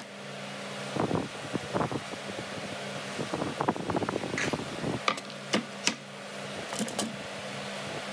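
Plastic ice-pop molds clicking and clattering against each other and the jug as they are handled, in irregular clusters, over a steady low hum.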